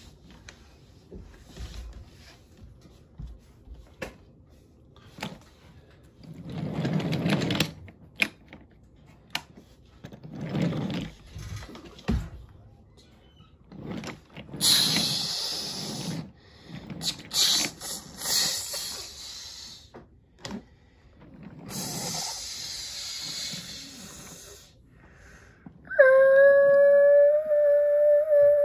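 Wooden toy train cars rolling along wooden track, in several uneven passes. Near the end comes a loud, steady horn-like tone that holds for about two and a half seconds.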